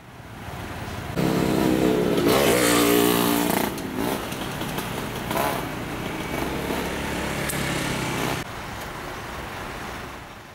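Road traffic with motorcycles riding past close by. An engine passes loudest between about one and four seconds in, its pitch rising and falling, then a steadier traffic noise carries on and fades out near the end.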